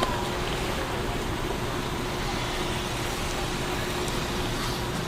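Metro-North Bombardier M7A electric train moving through the station: a steady rumble with a faint, constant hum.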